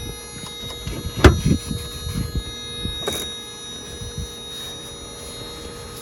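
Handling sounds on a plastic car interior panel: a sharp knock about a second in and a weaker one near three seconds, among soft low thumps and rubbing, over a steady faint hum.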